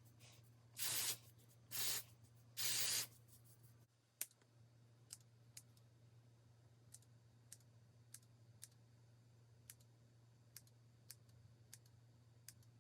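Three short sprays of Ebin Wonder Lace Bond adhesive spray, about a second apart, in the first three seconds. After that, faint scattered clicks come every half second to second over a steady low hum.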